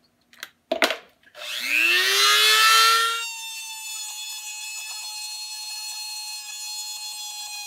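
A few light clicks as the square bit is fitted, then a handheld rotary tool spins up with a loud rising whine about a second and a half in. It then settles into a steady, quieter whine as the bit is worked into the wooden rifle stock's recoil-lug recess.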